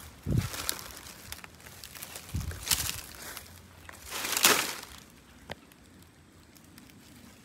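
Footsteps crunching and rustling on dry palm fronds and leaf litter: a few separate steps, the loudest about four and a half seconds in, then quieter.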